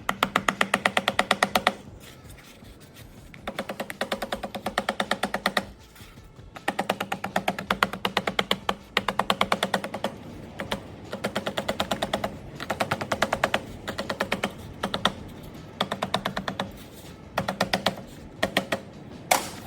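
Rapid light hammer taps on gasket material laid over a thermostat outlet, marking out a homemade gasket. The taps come in runs of one to two seconds at roughly ten a second, each with a ringing note, with short pauses between runs.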